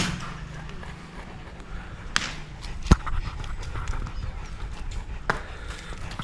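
A large dog panting steadily, with a few sharp clicks or knocks; the loudest comes about three seconds in.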